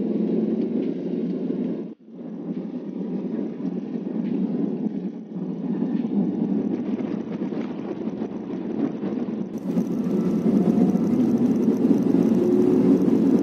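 Inside the cabin of a Daihatsu Gran Max van on the move: a steady low rumble of engine and road noise, with a brief dropout about two seconds in.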